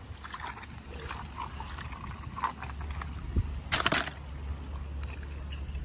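Scallop shells clicking and scraping against each other and on wet sand as they are picked up by hand, with a louder clattering rustle just under four seconds in, over a steady low rumble.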